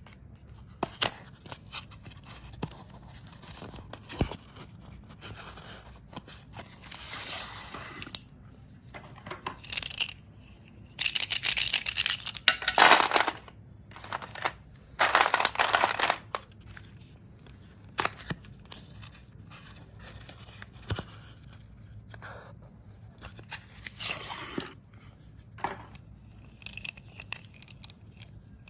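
Sticks of coloured chalk being crushed and crumbled: scattered sharp snaps and cracks, with several gritty crunching runs of a second or two, the loudest two about halfway through.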